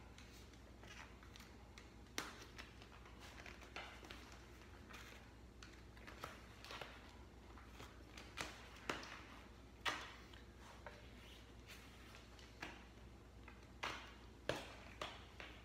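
Rubber road-bike tyre being worked by hand over the edge of the wheel rim: irregular sharp snaps and rubs, about a dozen, a few of them louder.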